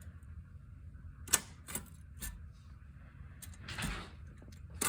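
Typewriter keys being struck one at a time, about five irregular sharp clacks, the loudest about a second in, with a longer rattle of the mechanism a little before the end.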